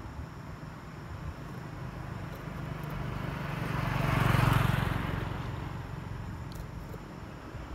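A motor vehicle passing by, its engine hum and tyre noise growing louder to a peak about halfway through and then fading away.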